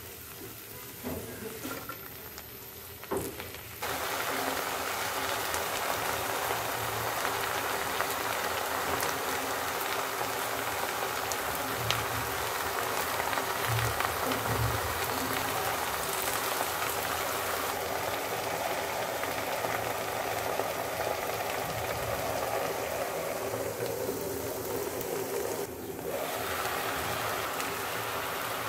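Water spinach (kolmi shak) frying in a pan, a steady sizzling hiss that starts abruptly a few seconds in, with a few light clicks before it.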